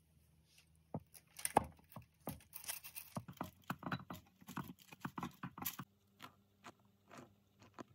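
Knife cutting through the crisp pan-fried crust of a cheese-filled potato flatbread: a dense run of crunching and crackling, thinning to a few lighter ticks near the end.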